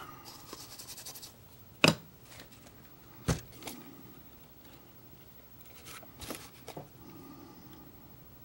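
Small tools and wire being handled: sparse clicks and knocks, the sharpest about two seconds in and another a little after three seconds, then soft rustling with light taps near the end.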